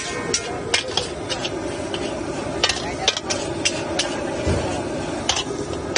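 Steel spatula clanking and scraping against a large wok as fried rice is tossed and stirred. The sharp strikes come at an irregular pace over a steady frying sizzle.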